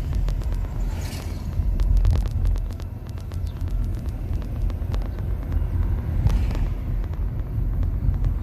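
Road noise of a moving Nissan Leaf electric car: a steady low rumble from tyres and road with no engine note, and a cluster of small clicks and knocks about two to three seconds in.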